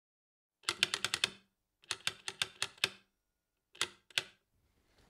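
Keys being typed: a quick run of about six key clicks, a second run of about seven, then two more clicks.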